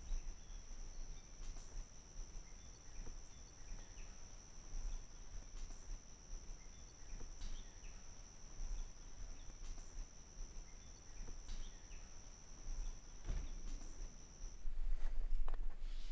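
A steady high insect trill over quiet summer woodland ambience, with a few faint footsteps and clicks. The trill cuts off suddenly near the end, giving way to a low hum.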